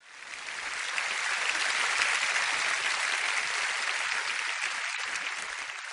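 Audience applause in a live concert recording, swelling up over the first second and then holding, thinning slightly near the end.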